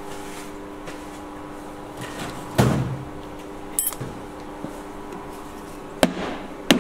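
Two sharp taps of a mallet on a wooden hangboard blank near the end, seating it on the CNC pallet, over a steady hum. A single duller thump comes about two and a half seconds in.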